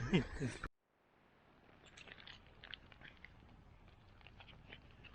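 A voice is cut off abruptly by an edit, followed by a moment of dead silence, then faint hiss with scattered small clicks.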